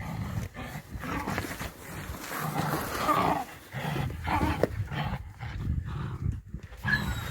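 Hunting laika dog growling in rough, low, irregular bursts, the sound of a dog fighting.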